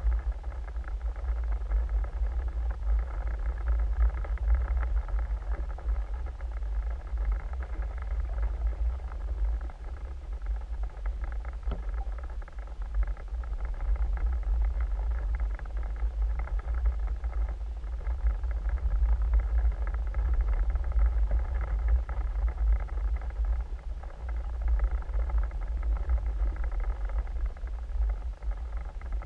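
Steady low underwater rumble of water moving against a camera housing as the diver swims, with a fainter hiss above it.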